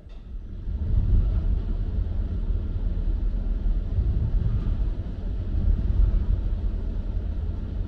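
Automated parking system's conveyor machinery moving a parked car sideways on its pallet: a steady low mechanical rumble that starts up and builds within about a second.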